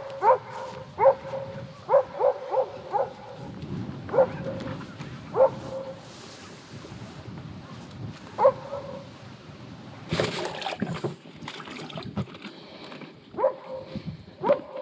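A dog barking repeatedly in short single barks and quick runs of two or three, with gaps of a few seconds between runs. A short burst of noise about ten seconds in.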